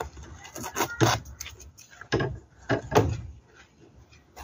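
Masking tape being peeled off fabric in an embroidery hoop, with hands handling the fabric: a few short, irregular rustling pulls.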